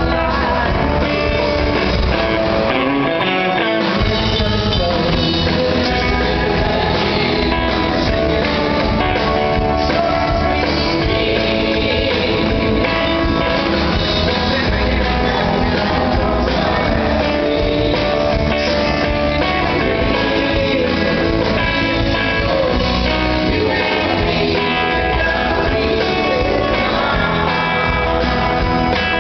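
A live country-rock band playing a song with singing, electric guitar and drum kit, at a steady full level.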